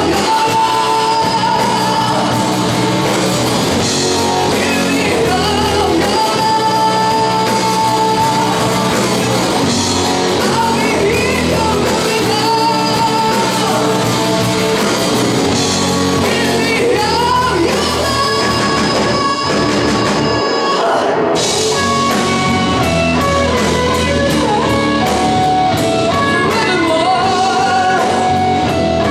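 Live hard-rock band playing in a hall: electric guitar and drum kit with singing, and long held notes over a steady beat.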